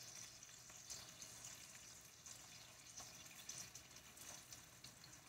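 Faint sizzling of Spam slices frying in a nonstick pan, a soft steady hiss with scattered small crackles.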